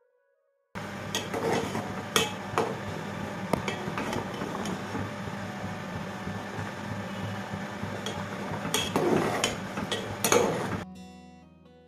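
Spatula scraping and clinking against an aluminium cooking pot while stirring a bubbling fish curry, with sharp metallic clinks throughout and the loudest ones about nine and ten seconds in. It stops abruptly near the end, where music comes in.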